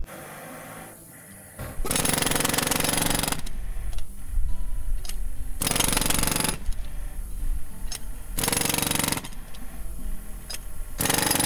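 90 lb pneumatic pavement breaker (jackhammer) with a wide spade bit, hammering into asphalt. It starts about two seconds in and keeps running, with several louder surges.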